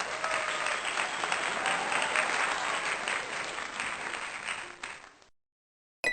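Applause from a crowd, many hands clapping in a dense patter, fading away about five seconds in and ending in dead silence.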